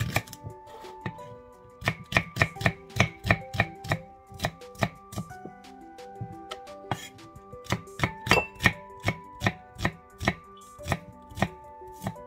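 Kitchen knife slicing shallots on a wooden cutting board: runs of quick, sharp knocks, about three a second, with short pauses between runs, over soft background music.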